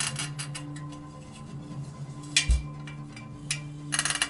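Spoke wrench loosening the steel spokes of a bicycle wheel: a quick run of sharp ticks as the nipples turn, then scattered clicks and a knock about two and a half seconds in, with another cluster of clicks near the end.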